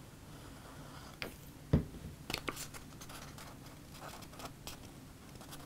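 Glued cardstock being handled and pressed together at the seam: light paper rustles and scattered taps, the loudest a soft knock just under two seconds in.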